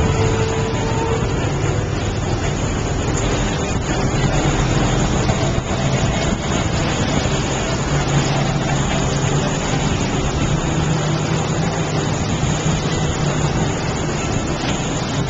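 Motorboat engine running steadily at low speed, a continuous drone with a low hum that strengthens a little midway.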